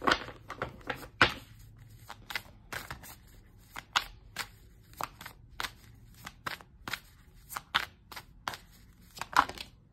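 A deck of oracle cards being shuffled by hand: a run of short, soft snaps and slaps, about two or three a second.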